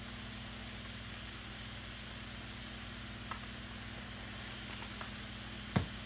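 Tilapia fillets frying in butter in a skillet, a steady sizzle over a low hum. A light click about three seconds in and a sharper knock near the end, the loudest sound.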